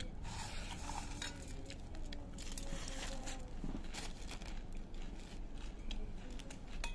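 Dry puffed rice (muri) crackling in many short, crisp clicks and rustles as it is handled in a steel bowl and eaten.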